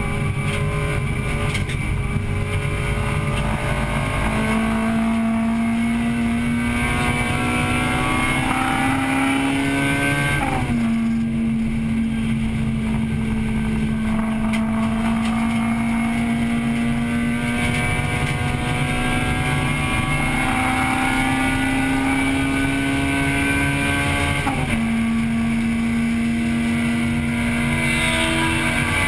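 1998 Acura Integra Type-R's 1.8-litre four-cylinder VTEC engine running hard under racing load, heard from inside the car. Its pitch climbs steadily, falls sharply about ten seconds in, climbs again for a long stretch, and falls sharply once more near the end.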